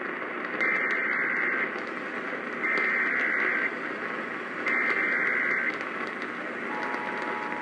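Emergency Alert System header received on AM radio: three bursts of digital data tones, each about a second long and about a second apart. Near the end the steady two-tone attention signal starts. Radio hiss runs underneath, and these signals open a tornado warning.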